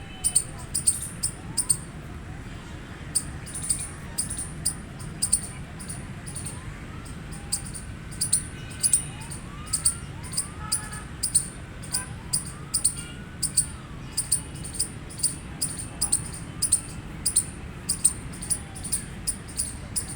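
Eastern gray squirrel giving its repeated sharp, high-pitched chirping alarm call, about one to two chirps a second at an uneven rhythm, over a steady low background rumble. A few faint rising whistles sound in the background partway through.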